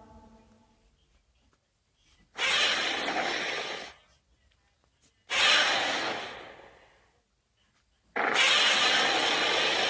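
Godzilla (2014 film) creature sound effects: the tail of a pitched call fades out, then two sudden hissing, breath-like blasts, each dying away over a second or two, and about eight seconds in a longer steady hiss starts and keeps going.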